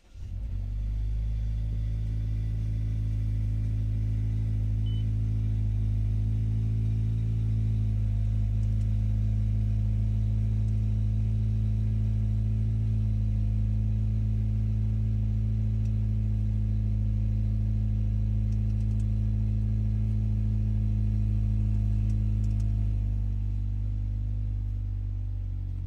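Mazda 3's engine starting and then idling steadily, heard inside the cabin; the idle drops lower and quieter near the end, as a fast idle settles.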